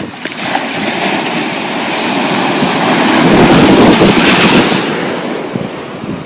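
Ocean surf, a long rushing wash of a wave that swells to a peak about halfway through and then fades away.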